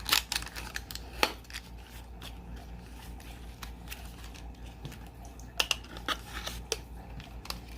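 Hands opening and handling a small product package: scattered clicks and light crinkling of the packaging, over a low steady hum.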